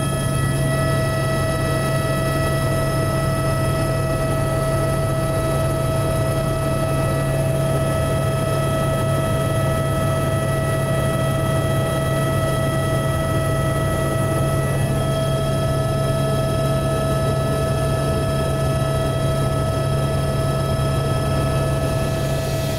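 Helicopter running in flight, heard from inside the cabin: a steady low drone with a constant whine above it.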